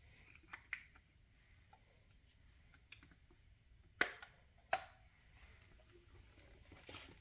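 Quiet handling of a plastic-capped glass bottle of avocado oil: faint ticks, then two sharp clicks about four and five seconds in as the bottle is picked up and opened, and a faint pour of oil onto vegetables in a pot near the end.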